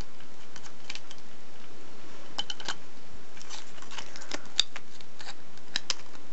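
Thin gold foil chocolate-coin wrapper crinkling and tearing between the fingers as small pieces are ripped out of its edge: irregular sharp crackles and ticks, sparse at first and bunching up from about two and a half seconds in, the sharpest about four and a half seconds in.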